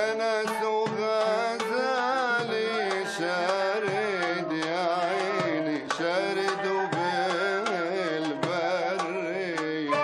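Arabic ensemble music: oud and qanun with hand-drum percussion, under a melody line that wavers with vibrato.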